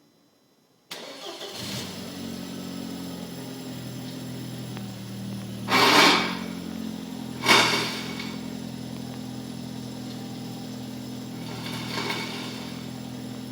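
A 2004 Audi A4's engine starting about a second in and settling into a steady idle. Two loud, short bursts of noise come around the middle, and a fainter one near the end.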